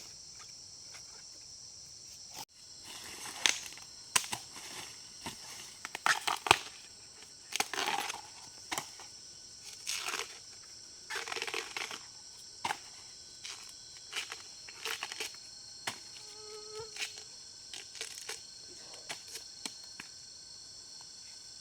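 Insects droning steadily in a high pitch, with irregular close crunches, snaps and rustles of plant stems being broken and handled, densest in the first half.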